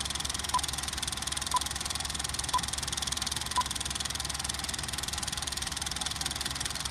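Film-leader countdown effect: short single-pitch beeps about once a second, the last one about three and a half seconds in, over the steady whirring clatter and low hum of a running film projector.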